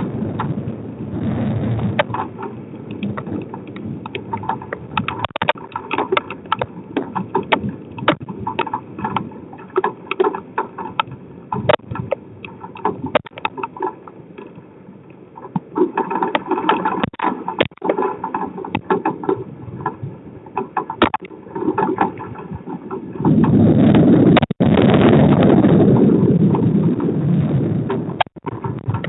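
Thunderstorm heard through a driveway security camera's microphone: rough wind-and-rain noise with many sharp ticks of drops striking the camera. About three-quarters of the way through, a much louder rumble starts suddenly and lasts about five seconds.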